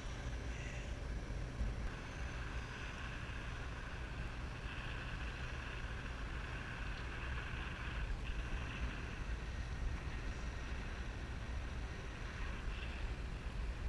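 Steady wind over a GoPro's microphone in parasail flight: a low, even rumble with a fainter hiss above it.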